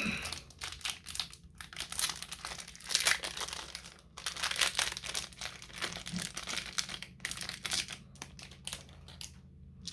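Plastic bags of game dice crinkling as they are handled and opened, in irregular rustling strokes throughout.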